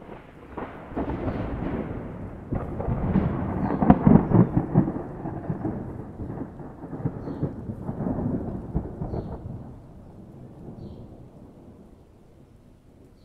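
A long roll of thunder that starts suddenly and swells to its loudest crackling rumble about four seconds in. A second surge comes near eight seconds, then the rumble fades away.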